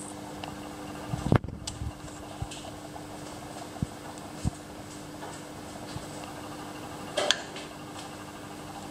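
Clicks and a knock from hands working parts on the cylinder head of a Ford 1.6-litre engine during a compression test, over a steady low hum. There is one louder knock about a second in, a few sharp clicks after it, and a short hiss near the end.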